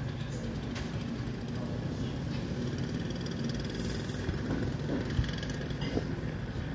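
MAN TGS 26.320 garbage truck's six-cylinder diesel engine running at a steady idle.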